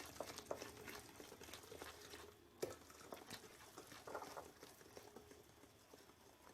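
Faint, irregular taps and scrapes of a utensil stirring flour into cake batter in a bowl, with a slightly louder knock about two and a half seconds in.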